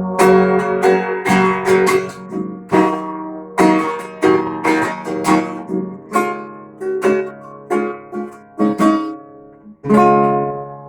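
Acoustic guitar strummed in chords, an instrumental passage after the sung verse, slowing toward a final chord near the end that is left ringing.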